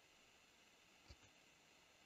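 Near silence with a faint steady hiss, and one computer mouse click, press and release, a little after a second in.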